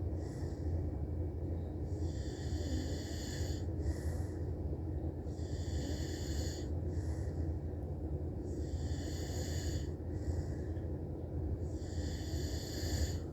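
A man snoring steadily, one breathy snore about every three seconds, four in all, over a steady low hum.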